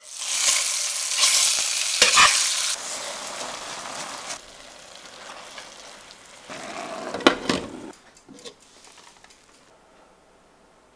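Chicken breasts sizzling loudly in hot oil in a stainless steel pan, with a few clinks of a spoon against the pan. Later a spatula scrapes and stirs buckwheat and shallots in the pan with a couple of sharp clicks, and the sound dies down near the end.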